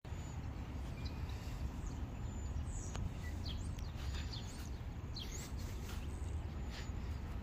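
Small birds chirping outdoors, a handful of short sweeping calls scattered through, over a steady low rumble of outdoor background noise.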